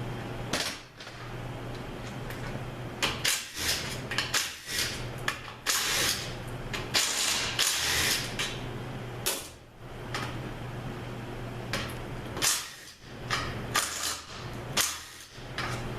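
A power tool spinning out the valve body bolts on an automatic transmission, in a string of short spurts of about half a second to a second each, over a steady low hum.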